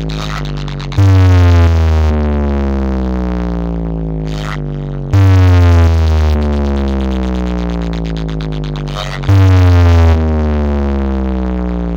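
DJ sound system playing a speaker-check track at high volume: a deep synth bass tone, thick with overtones, that hits loudly and then slides slowly down in pitch, restarting three times about four seconds apart.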